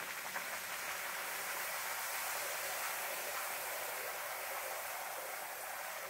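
Thin disc of maida dough deep-frying in hot ghee in a kadhai: a steady, even sizzle of bubbling fat.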